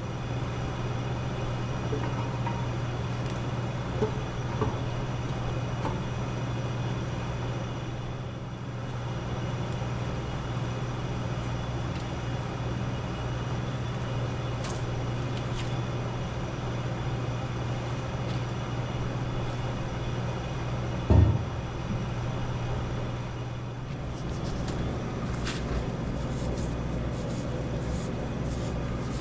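Steady mechanical hum of a mains-powered machine such as a shop fan, with a few light knocks and one louder knock about 21 seconds in.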